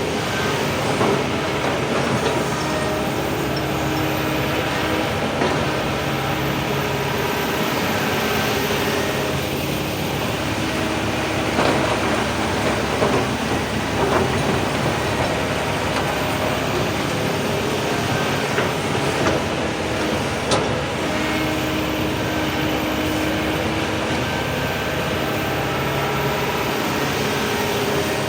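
Heavy excavator's diesel engine running steadily at a mine site, with a continuous mechanical clatter and a sharp metallic clank about two-thirds of the way through.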